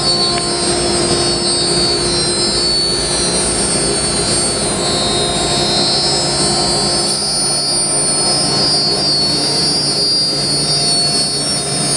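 Steady drone of shop machinery running, with several held high-pitched whines over a lower hum and no change in pitch or level.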